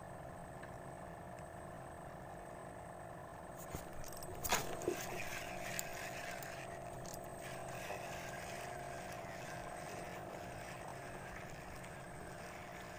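Spinning reel and rod handled for a cast: a few clicks and one sharp knock about four and a half seconds in, followed by a brief hiss. A steady low hum runs underneath.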